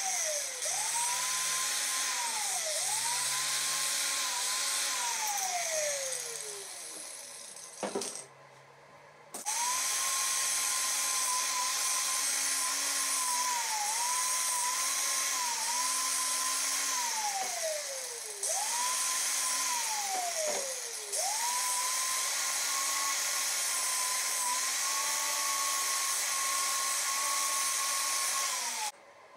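Angle grinder running against a welded steel piece, with a high whine that dips briefly as the disc bears on the metal. It is switched off and restarted several times, its whine falling away as it coasts down, and it stops shortly before the end.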